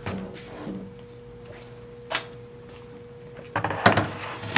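A crosscut sled being set down on a router table: a cluster of knocks and sliding clatter as the sled meets the tabletop, starting about three and a half seconds in, after one lone knock about two seconds in.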